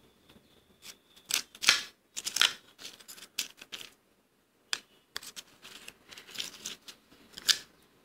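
Soft freezer frost crunching: a string of crisp, scratchy crunches in two runs with a short pause in the middle, the sharpest ones near the start and near the end.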